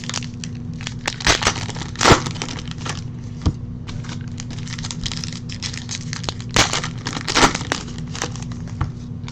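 Trading card pack wrapper being torn open and crinkled by hand: irregular sharp crackles, loudest about two seconds in and again about seven seconds in.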